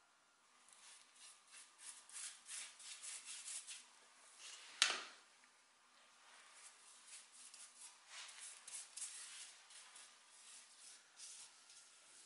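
A paintbrush rubbing liquid onto a painted tubular metal chair base in quick, repeated bristle strokes, with one sharp tap about five seconds in.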